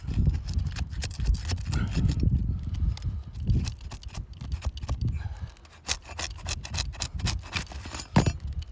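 Irregular knocks and scrapes on an asphalt shingle roof as shingles are handled and worked loose, over a low rumble in the first few seconds, with a sharp knock near the end.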